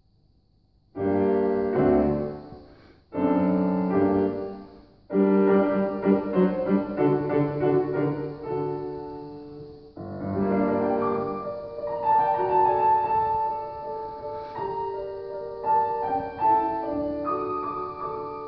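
Grand piano played solo. After about a second of quiet, three loud chords are struck, each left to ring and fade, and then the playing continues without a break, with a melody held above the accompaniment.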